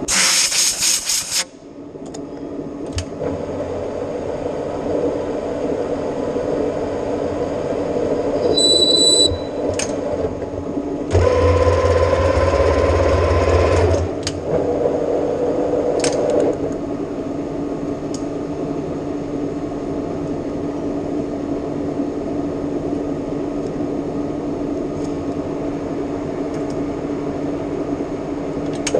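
Metal lathe running while turning stainless steel, a steady machine hum throughout. A short burst of loud hiss comes at the start, a brief high squeal about nine seconds in, and a louder stretch with a deeper rumble from about eleven to fourteen seconds.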